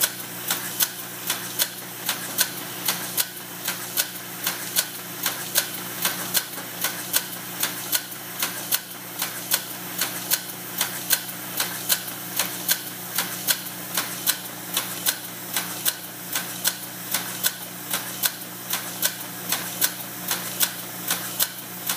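MG transfer taping machine with automatic feeder running, taping sheets as they feed through: a steady motor hum under a fast, even clacking, about three clacks a second.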